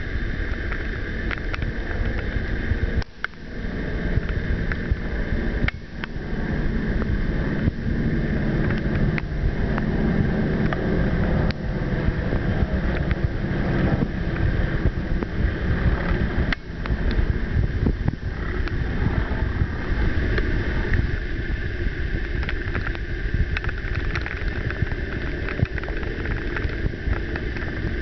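Propeller aircraft flying overhead, their engine noise mixed with wind rushing on the microphone, with a few brief dips in level.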